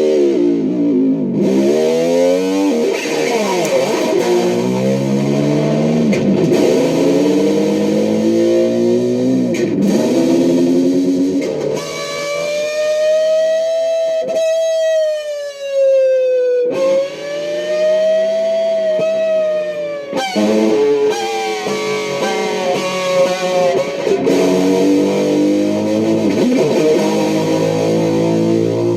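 Distorted electric guitar playing swooping notes that dive and rise every second or two, with a long held, wavering note about halfway through.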